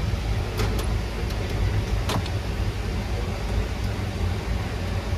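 Cabin noise of a Dash 8-100 turboprop airliner: a steady low drone with hiss, and a few sharp rattling clicks.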